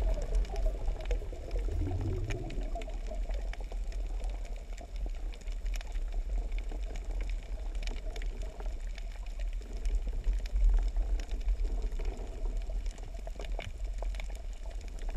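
Underwater ambience heard through a diving camera: a steady low rumble of water movement with scattered sharp clicks and crackles.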